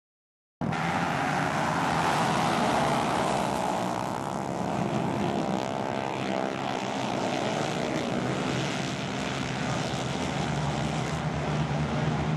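A pack of flat-track racing motorcycles running hard together on a dirt oval, their engines blending into one dense, continuous drone. It cuts in suddenly about half a second in and stays loud throughout.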